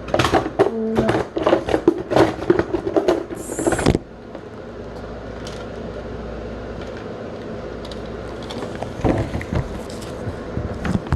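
Rummaging through boxes of small toy trucks: a quick flurry of clicks, knocks and rattles for about four seconds, then much quieter, with a few more knocks near the end.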